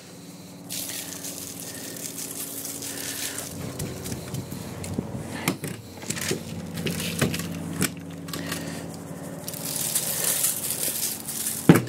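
Dry rub shaken from a plastic shaker bottle over a raw chicken, the granules rattling and hissing onto the skin and foil pan, heaviest near the end. Scattered small clicks and knocks come from handling the metal rotisserie spit, over a steady low hum.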